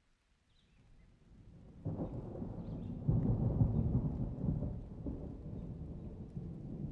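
A deep, rumbling noise that swells up about two seconds in, is loudest a second or two later, then slowly fades.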